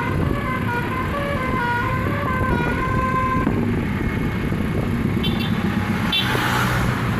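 Indonesian 'telolet' bus horn playing a stepped multi-note melody that stops about halfway through, over the bus's engine running. A short hiss comes near the end.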